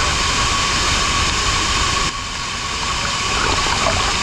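Loud, steady rush of a waterfall crashing down at close range, heard from inside the falling spray; it dips slightly about two seconds in, then swells back.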